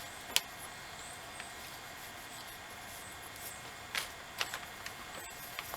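A few light, sharp clicks and knocks over a steady faint hiss: chrome billet grille inserts handled while being wiped down with a cloth. The loudest click comes about half a second in, and a small cluster follows near the end.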